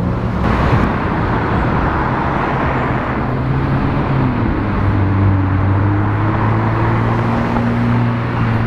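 McLaren sports car's twin-turbo V8 running as the car drives along a road, a steady engine note over tyre and traffic noise that climbs slightly in pitch after about four seconds.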